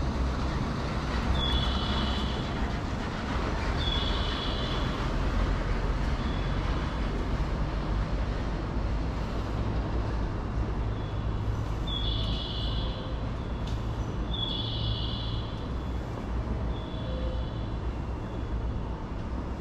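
Steady low rumble of passing vehicles in a town street, with short high chirps repeating every couple of seconds.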